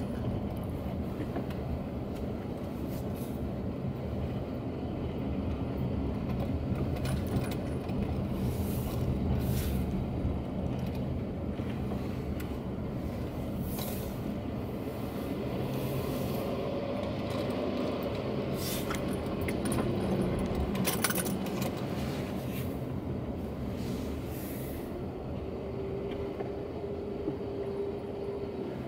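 A car's interior while driving slowly: a steady low engine and road hum, with scattered light clicks and rattles inside the car. A faint steady whine shows near the end.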